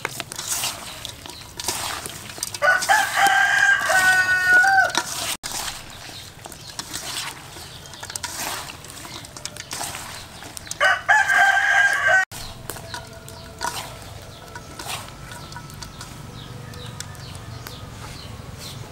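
A rooster crows twice, about eight seconds apart, each crow a loud pitched call lasting one to two seconds. Between the crows, soft wet squelches and clicks of hands kneading skinned frogs in a metal bowl.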